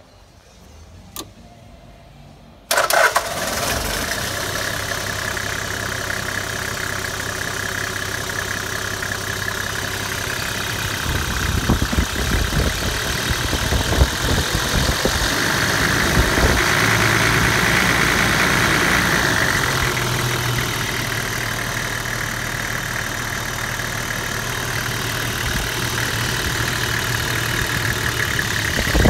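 Toyota 1HZ 4.2-litre naturally aspirated inline-six diesel in a 75 Series Landcruiser starting suddenly a few seconds in, then idling steadily. It gets louder for a stretch in the middle.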